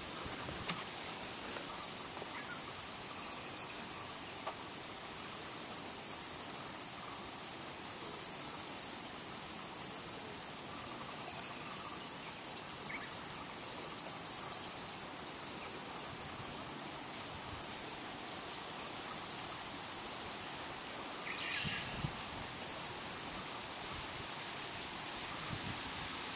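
Steady, high-pitched chorus of insects, unbroken, with a brief faint call about 22 seconds in.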